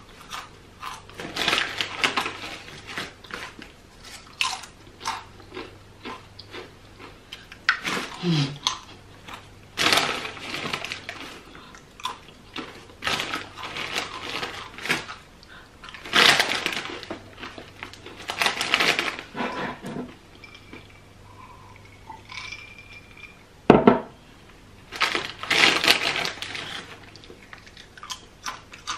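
Crinkling of a plastic snack bag and crunching of sweet plantain chips being bitten and chewed, in irregular bursts. A single sharp thump about three-quarters of the way through.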